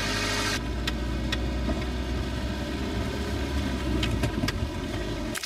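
A car driving along a rough country road, heard from inside the cabin: steady engine and road rumble with a few light clicks and rattles.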